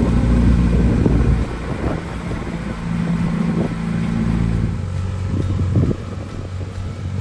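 A nearby aircraft engine running with a steady low drone. It is loudest for the first second and a half, then drops back to a lower, even drone.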